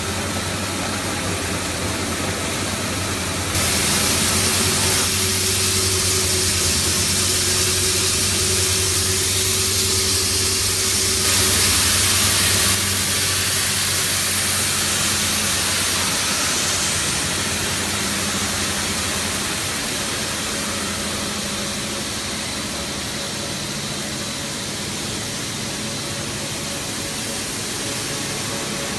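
Plastic pelletizing line running: a steady machine hum from its electric motors with a loud hiss over it. The hiss comes in about three and a half seconds in and eases off after about seventeen seconds, leaving the hum.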